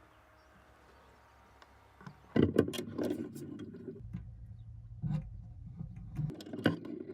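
Wooden observation-window covers of a homemade pallet-wood beehive being worked open and shut: a run of knocks, clicks and sliding scrapes starting about two seconds in.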